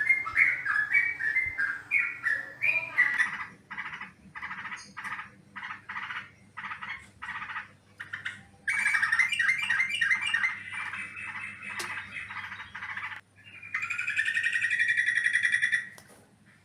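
Yellow-vented bulbul (trucukan) calls used as a trapping lure. Quick chattering notes come first, then a run of short separate notes about two a second, then a dense chatter, and finally a long buzzy trill that stops abruptly near the end.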